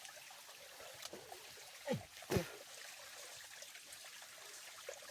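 Faint, steady trickle of flowing water, with two short sounds that glide sharply downward in pitch about two seconds in.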